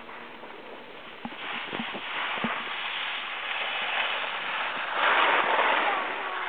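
Skis hissing and scraping over packed snow, getting louder and peaking in a scrape about five seconds in as the skier brakes to a stop; a few faint knocks a second or two in.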